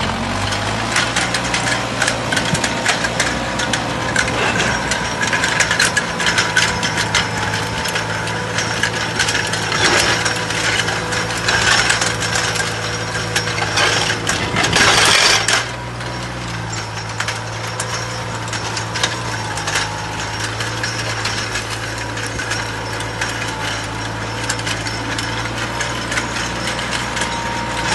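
New Holland tractor's diesel engine running steadily under load with a constant whine, while the spring tines of a 13-tine duckfoot cultivator drag through dry clods with continuous rattling and scraping of soil and stones. About halfway through, a louder rush of noise swells for about a second.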